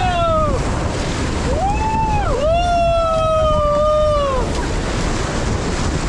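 Rushing whitewater and wind buffeting the microphone on a raft running river rapids, with rafters letting out long wordless yells: three in a row, the last held about two seconds before it falls away.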